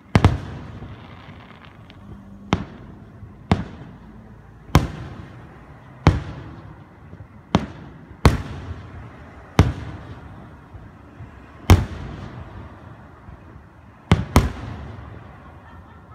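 Aerial firework shells bursting in a display: about a dozen sharp booms at irregular intervals of one to two seconds, some in quick pairs, each trailing off in a fading echo.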